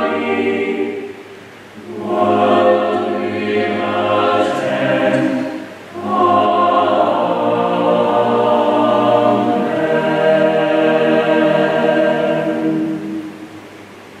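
Mixed chapel choir singing the evensong psalm in Anglican chant, in three phrases with short breaks between them. The last chord dies away into the chapel's echo a second or so before the end.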